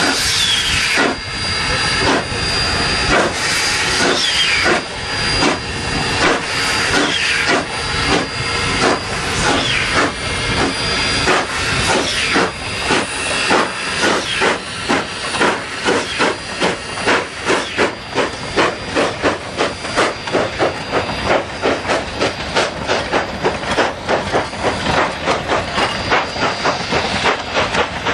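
Narrow-gauge K-36 2-8-2 steam locomotive No. 483 working hard as it pulls away with its train. Its exhaust chuffs quicken from about one and a half to about three a second as the train gathers speed, over a hiss of steam that stops about halfway through.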